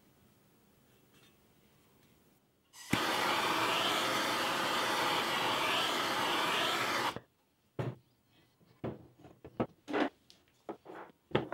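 A steady spray hiss lasting about four seconds, starting and stopping abruptly, then a run of short, light knocks and clicks.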